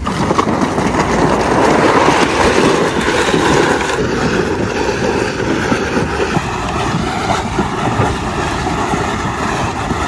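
Wheels of a rolling cooler running over the planks of a wooden boardwalk, a steady rumble that is loudest in the first few seconds.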